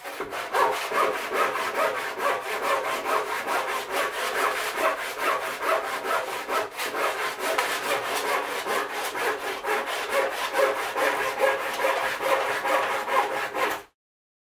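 Handsaw cutting through a thick black locust slab, with a steady, rapid rhythm of rasping back-and-forth strokes. The sawing stops abruptly near the end.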